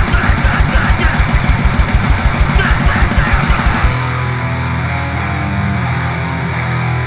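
Live hardcore punk band playing loud and fast: rapid, even kick-drum beats under crashing cymbals and distorted guitar and bass. About four seconds in the drums stop and a distorted guitar and bass note rings on.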